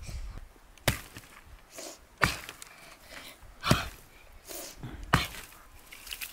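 An axe chopping a dry, dead tree branch lying on the ground: four sharp blows at an even pace, about one and a half seconds apart, with faint rustling between them.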